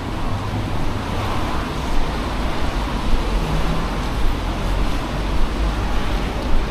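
City road traffic: a steady hiss and low rumble of vehicles passing.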